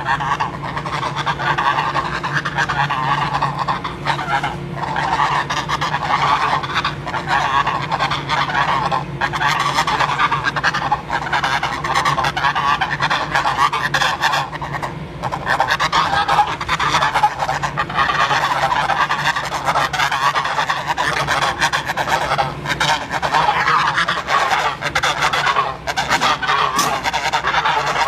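Geese honking without a break, many calls overlapping into a dense, continuous clamour.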